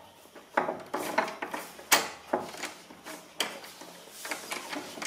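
A series of irregular knocks and clatters, several in the first few seconds and a few more near the end, like hard objects being handled or set down.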